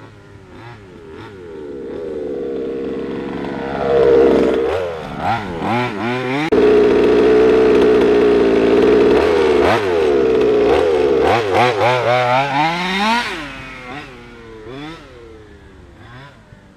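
HPI Baja 5SC 1/5-scale RC truck's big-bore two-stroke gas engine with a silenced side-pipe exhaust, revving up and down as the truck drives close past. It builds to its loudest over about nine seconds in the middle, then drops away and fades.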